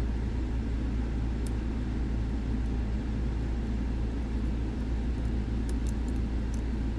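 Steady low background hum, with a few faint, sharp ticks of a lock pick working the sliders of an M&C Condor dimple lock, about a second in and again several times near the end.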